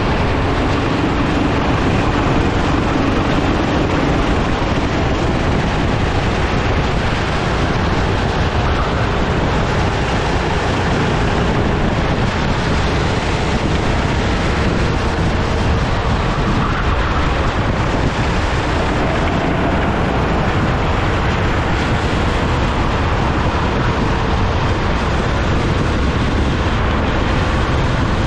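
Sodikart rental kart engine running at racing speed, heard from onboard, its faint note shifting in pitch through the corners under heavy wind buffeting on the microphone.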